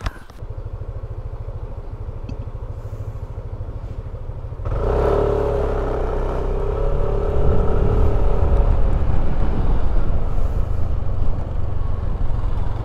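Motor scooter engine idling, then about five seconds in pulling away and speeding up, louder, with a steady engine note over a low road and wind rumble as it rides off.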